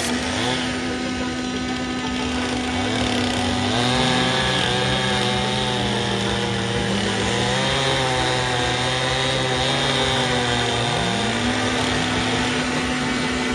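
Chainsaw cutting a log: the engine runs at high revs, then drops in pitch about four seconds in as the chain bites into the wood and holds low under load, before rising back to full revs about two seconds from the end as it comes through the cut.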